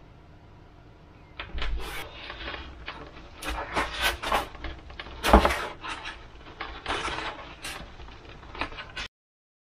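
Depron foam wing and fuselage handled and pressed together: irregular rubbing, scraping and clicking of foam parts, with a sharper knock about halfway through. The sound cuts off abruptly near the end.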